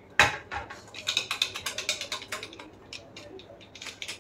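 Stainless steel steamer trays and a steel bowl clinking as they are handled on the counter: a sharp clank just after the start, then a quick run of light clicks and clinks that thins out.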